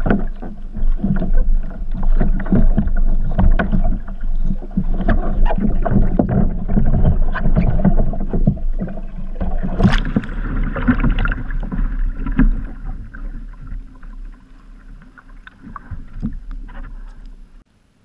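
Muffled rushing water and knocking heard underwater from a kayak's bow-mounted GoPro during a re-entry roll. About ten seconds in there is a sharp splash as the bow breaks the surface, and after that the water sloshing grows fainter and dies away.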